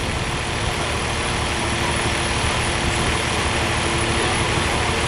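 Lockheed C-5 Galaxy's four turbofan engines heard from the ground as the jet flies its display: a steady rumble with a faint low hum running through it.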